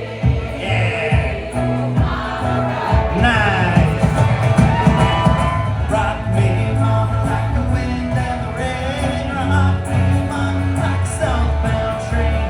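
Live band playing a song with singing over a steady, pulsing bass line.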